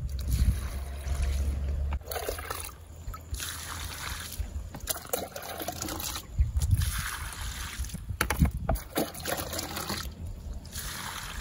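Water poured by hand from a bucket onto the ground at the base of a young durian tree, splashing in about four separate pours of roughly a second each. A low rumble fills the first two seconds.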